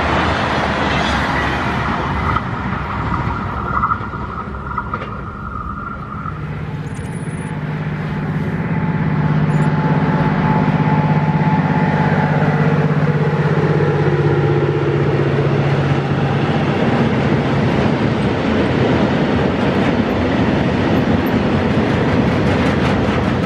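A passenger train finishes passing, then after a short lull an electric locomotive approaches with a low steady hum. It hauls a long freight train of covered wagons past, with continuous loud rolling of wheels on rail.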